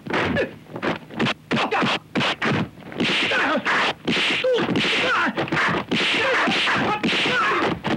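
Martial-arts film fight sound effects: a rapid string of punch and kick impacts, several a second, mixed with the fighters' shouts and grunts. The blows come thicker and almost continuous from about three seconds in.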